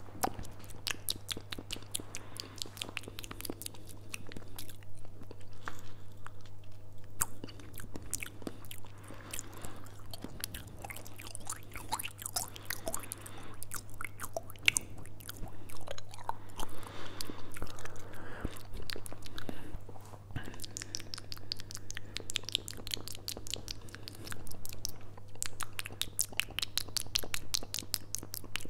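ASMR mouth sounds made right against a fuzzy-windscreen microphone: rapid clicks and smacks from the mouth, coming in clusters with short lulls between them.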